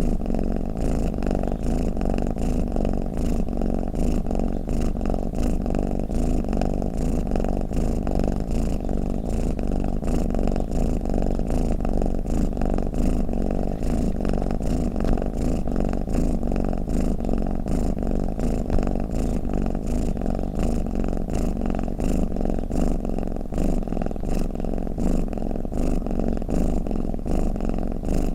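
Domestic cat purring, a steady unbroken rumble.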